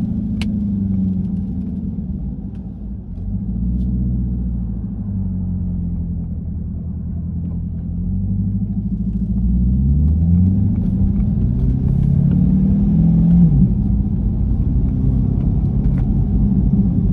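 Corvette C8's V8 engine running while driving, a low drone whose pitch climbs a few times as the car accelerates through the gears, then drops near the end.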